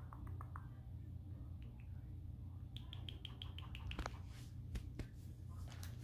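Indian ringneck parakeet making faint beak clicks, with a quick run of about eight short, high squeaky chirps midway through, over a low steady hum.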